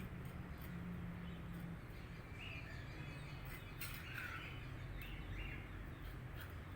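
Birds chirping: a few short calls, some falling in pitch, cluster around the middle, over a steady low outdoor rumble.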